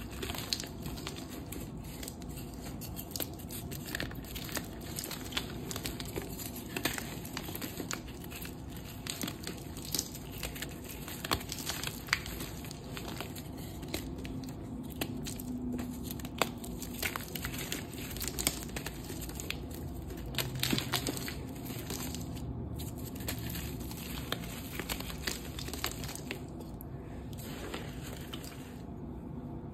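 Black reformed gym chalk chunks crumbled and crushed between the fingers into a dusty pile. The crunching goes on without a break, with many small sharp snaps scattered through it.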